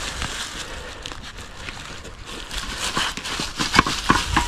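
Footsteps on the forest floor: a few irregular light crunches and knocks, coming more often after about two and a half seconds.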